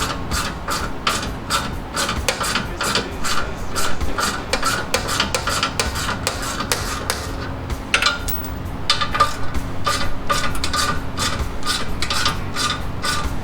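Hand ratchet clicking in a quick, even run of about four or five clicks a second as it spins off loose exhaust fasteners, with a short pause about seven seconds in.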